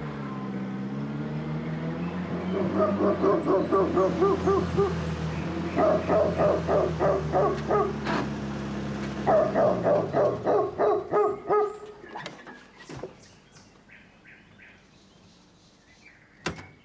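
A dog barking in quick repeated runs over the steady hum of a jeep's engine. The engine dies away about ten seconds in, and a few sharp knocks follow.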